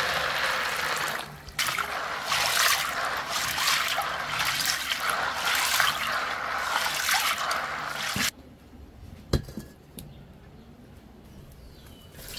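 Water pouring and splashing, steady apart from a brief break early in, then cutting off suddenly about eight seconds in. A couple of sharp knocks follow in the quiet.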